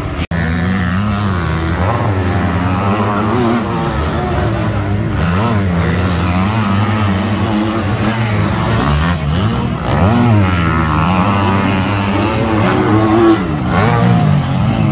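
Motocross bikes racing round a dirt track, their engines revving up and dropping back again and again as they accelerate and shift. One bike passes close near the end.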